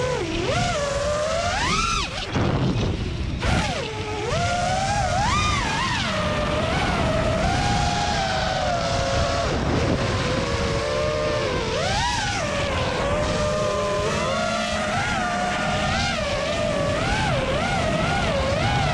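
Brushless DRP New Yorker motors spinning Gemfan Hulkie 5-inch props on a 6S FPV racing quadcopter, whining with a pitch that rises and falls constantly as the throttle changes. The whine drops out briefly about two seconds in, and wind rushes over the microphone throughout.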